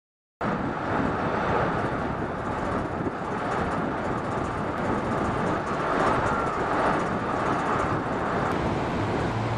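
Steady outdoor noise of wind buffeting the microphone over a low rumble, cutting in suddenly a moment in after silence.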